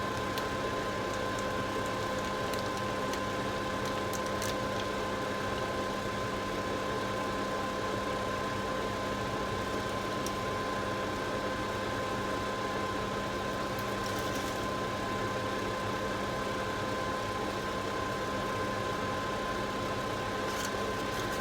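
A steady machine hum made of a few fixed tones, unchanging throughout, with a few faint clicks.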